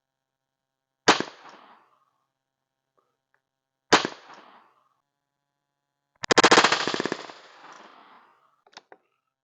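Two sharp shots from an unsuppressed PCP air rifle firing slugs, about three seconds apart, each with a short ringing tail. Near the end comes a louder rapid rattling burst lasting about a second that fades over the next two seconds.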